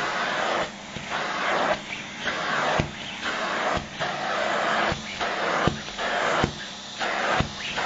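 Vacuum cleaner nozzle sucking at a nylon down jacket: the airflow hisses in short surges, roughly one a second, choking off in between, with sharp little clicks here and there.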